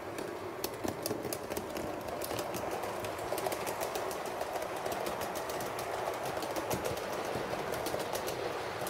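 HO scale model train running on its track: a steady rumble with rapid, irregular clicking of the wheels over the rail joints.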